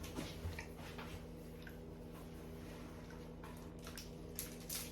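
Quiet room with a steady low electrical hum and a few faint, scattered small clicks.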